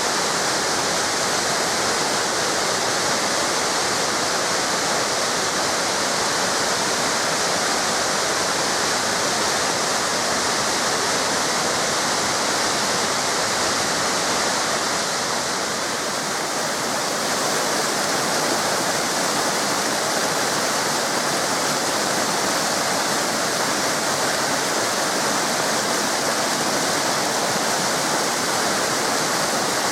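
Waterfall cascades rushing: steady, dense water noise with no breaks.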